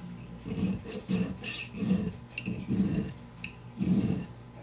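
Hand file rasping in repeated strokes, roughly two a second, across a small gold pendant held against a wooden bench pin, filing the fused-in gold repair flush.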